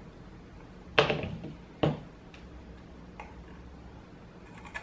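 Clicks and knocks of small hard tools and a box mod being handled and set down on a desk mat: two sharp knocks about one and two seconds in, the first ringing briefly, then a few faint ticks.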